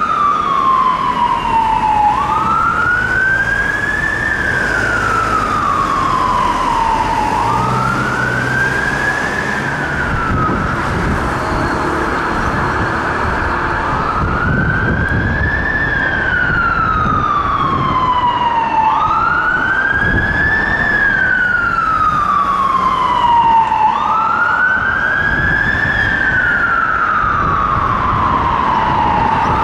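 Fire engine siren on a slow wail, its pitch climbing and then sliding back down about every five seconds, over traffic noise.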